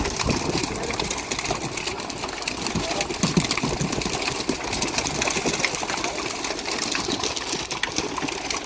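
Small engine on a fishing boat running steadily with a rapid mechanical clatter.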